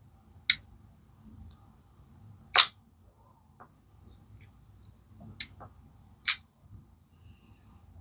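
Four sharp clicks from an Ozark Trail folding pocket knife being worked open and closed against its locks.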